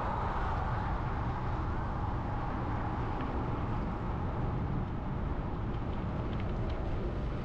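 Steady roadside traffic noise with a low rumble of wind on the microphone as it moves along the highway shoulder. A passing vehicle fades away within the first second.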